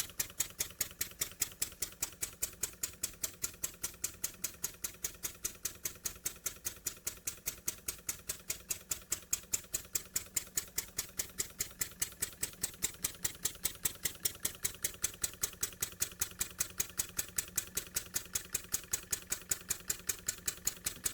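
Jowitt Major poppet-valve model steam engine running steadily on compressed air, well oiled. It gives an even, sharp beat of about four to five strokes a second.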